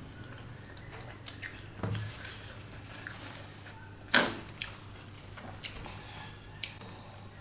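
A nose blown hard into a paper tissue: one short, loud burst of breath about four seconds in. A few faint clicks and small mouth sounds come before and after it.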